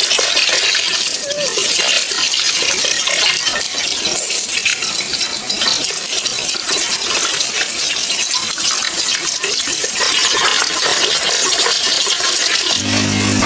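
Water splashing and sloshing with many small clinks and knocks. Music starts near the end.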